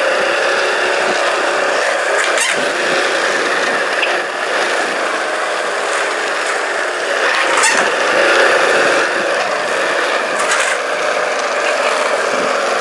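Skateboard wheels rolling over a smooth, hard store floor: a steady rolling noise with a few sharp clacks, about two and a half, seven and a half and ten and a half seconds in.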